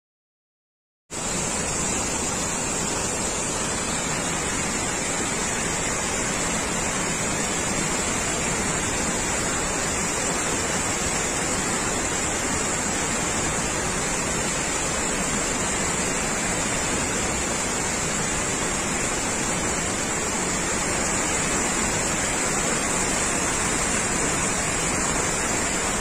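A heavy waterfall rushing, a steady dense noise of falling water that starts abruptly about a second in and holds without change.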